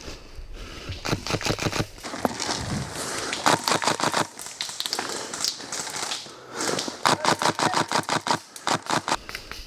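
Airsoft guns firing several strings of rapid, sharp clicking shots, about eight to ten a second, with short pauses between the strings.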